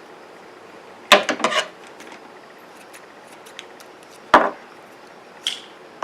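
Small objects being handled and set down on a desk: a short clatter of several knocks about a second in, then one sharp knock a few seconds later, with faint ticks after it.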